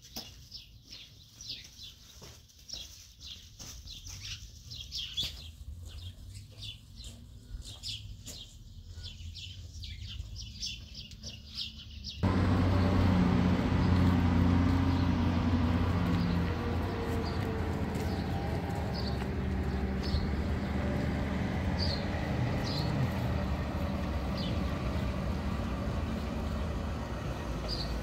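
Small birds chirping again and again. About twelve seconds in it cuts abruptly to a louder, steady low rumble, with a few chirps still heard above it.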